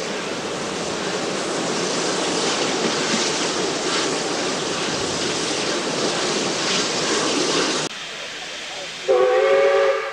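Steady rush of wind and running noise from a moving steam-hauled passenger carriage, cut off abruptly about eight seconds in; about a second later the steam locomotive's whistle sounds one steady blast lasting about a second.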